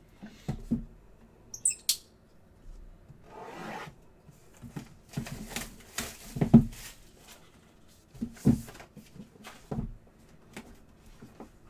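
Cardboard box being handled and opened: the lid and sides rubbing and scraping as they slide, with several light knocks as the box is set down and moved on the table.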